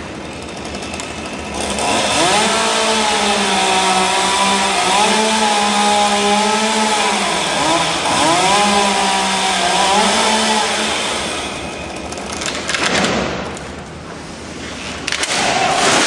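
Chainsaw running at high revs while cutting through the trunk, its pitch dipping and recovering several times as it works in the cut, then stopping about eleven seconds in. Near the end come a few short bursts of noise as the cut treetop comes down.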